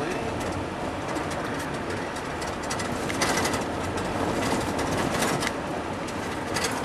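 Steady travel noise inside a moving vehicle: road and wind rush with a low rumble, broken by frequent light clicks and rattles, busiest a little after three seconds in.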